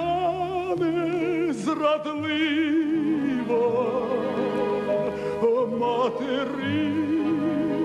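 Male baritone voice singing a Ukrainian song in operatic style, long notes held with wide vibrato over instrumental accompaniment.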